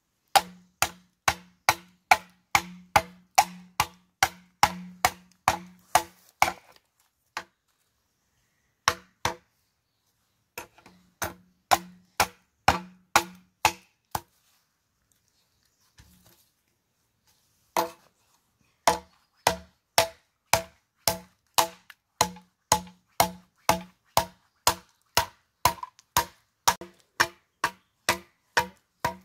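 A blade chopping bamboo in rapid, evenly spaced strokes, about two or three a second, each with a short hollow ring. The chopping pauses twice for a few seconds.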